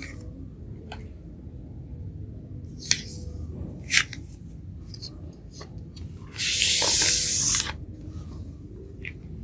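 Cardboard LP record jacket being handled: a few light taps and clicks, then a loud sliding rustle lasting over a second about six seconds in as the sleeve is moved and laid flat.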